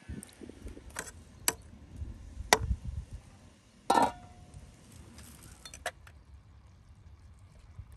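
A metal ladle clinking a few times against a metal cooking pot, then a metal lid set down on the pot about four seconds in with a loud clank and a brief ring.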